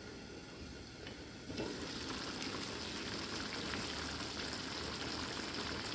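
Pot of chicken-feet adobo simmering: a faint bubbling hiss under the glass lid, which turns louder about a second and a half in as the lid is lifted and the bubbling braising liquid is uncovered.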